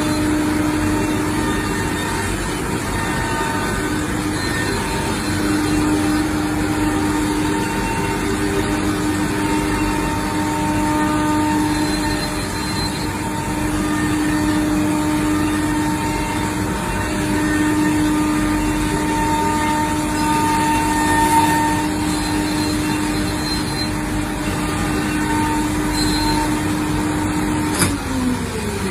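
Selexx Pal CNC router running: a steady machine whine over a rushing noise. Near the end there is a click and the whine falls away in pitch.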